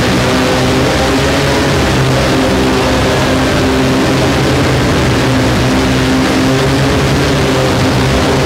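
Heavily distorted electric guitar in a dense, steady noise drone: a few held low notes buried under a loud wash of hiss, with no clear melody or beat.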